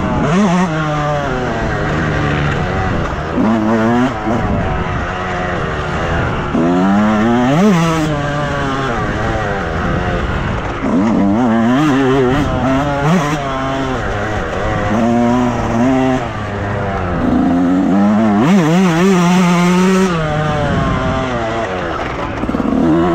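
Motocross bike engine running hard, its pitch climbing and dropping again and again as the throttle opens and closes and the gears change.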